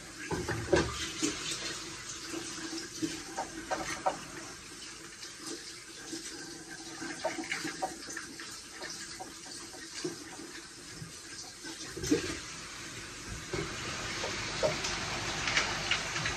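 Kitchen tap running into a stainless steel sink as a steady hiss, with scattered light clicks of a knife and handling over the sink.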